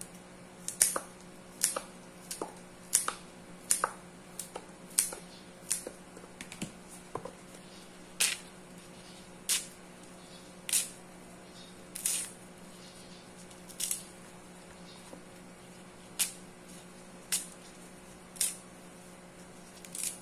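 Fresh taro (gabi) leaf stalks being cut into short pieces, each cut a crisp snip. There are about twenty, roughly two a second at first and then slowing to about one a second. A steady low hum runs underneath.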